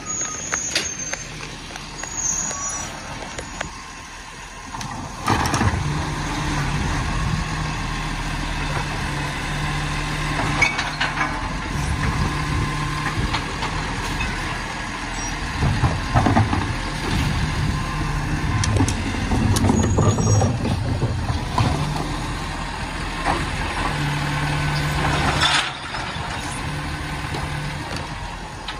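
Automated side-loader garbage truck working close by: its engine runs steadily, louder from about five seconds in until near the end, with a few sharp hisses and clanks from its brakes and lifting arm.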